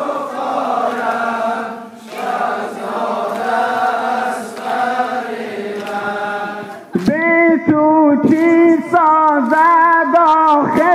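Group of men chanting a Persian mourning lament (noha) together, their voices blended. About seven seconds in, a single voice, louder and clearer, takes up the lament solo.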